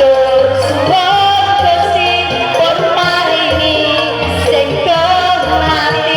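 Music with a woman's singing voice over a steady bass beat.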